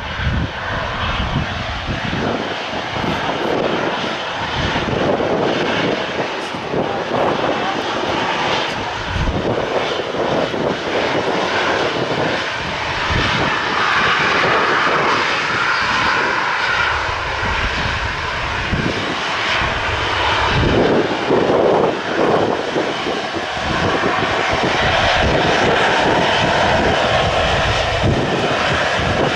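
Twin jet engines of a Boeing 737 running at low taxi power while the airliner turns on the runway, with gusts of wind buffeting the microphone. The engine noise grows a little louder in the second half.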